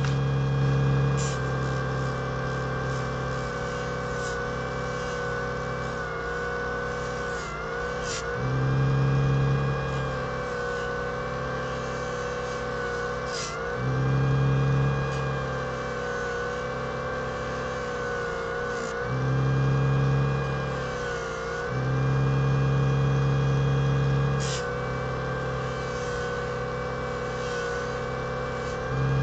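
Small electric disc sander, a Parkside 140-watt, running steadily while an epoxy resin piece is held against its 7000-grit pad for the final polish. The motor's pitch sags briefly a few times, and a louder low hum comes and goes every few seconds.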